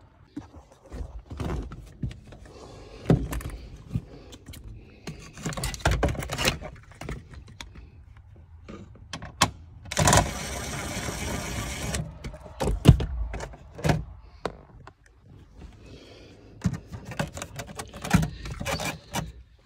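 A DeWalt 20V cordless 1/4-inch impact driver with a 7 mm socket runs for about two seconds about halfway through, backing out a dash screw. Scattered clicks and knocks of tools and parts being handled fill the rest.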